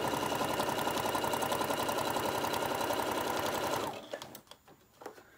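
Computerized sewing machine running steadily at speed, its needle stitching a straight seam through layered quilting cotton with a fast, even rhythm. It stops abruptly about four seconds in, leaving only a few faint clicks of the fabric being handled.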